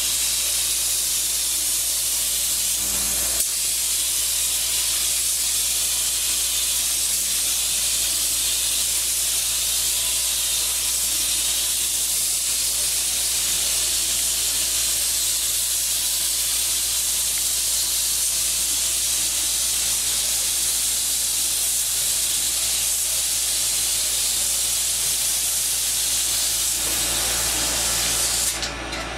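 Gravity-feed paint spray gun hissing steadily as compressed air atomises white paint onto a car body. The hiss cuts off near the end.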